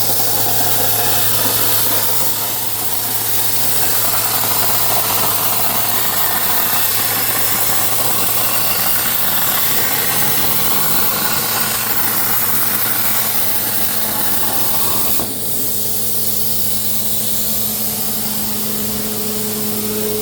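CNC plasma cutter cutting metal: the steady hiss of the plasma arc over a constant hum from the machine, with a short dip in the sound about 15 seconds in.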